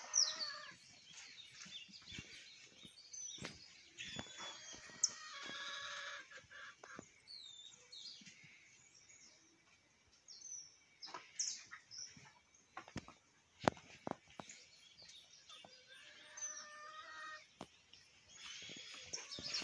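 Small birds chirping in quick, high, falling notes, with a chicken calling twice, well apart; a few faint knocks in between.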